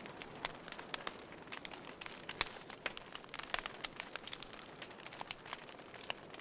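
Fire crackling: irregular small pops and snaps over a soft hiss.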